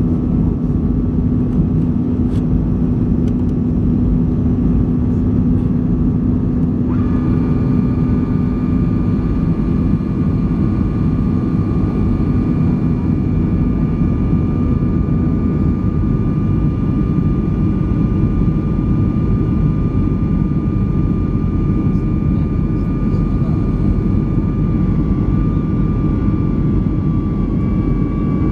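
Boeing 737-300 cabin noise in the climb after takeoff: a steady roar from the CFM56-3 engines and the airflow. A low hum fades out midway, and a steady high whine comes in suddenly about seven seconds in and holds.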